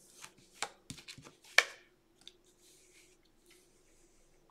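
Lenormand cards handled and turned over on a cloth-covered table: a few short slaps and swishes of card, the sharpest about a second and a half in, then a faint brushing. A steady low hum runs underneath.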